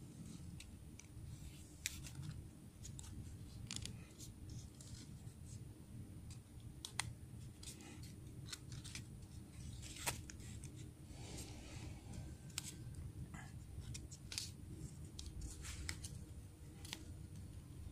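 Origami paper being creased and pinched by hand into a butterfly: scattered sharp crinkles and crackles of the paper, over a steady low hum.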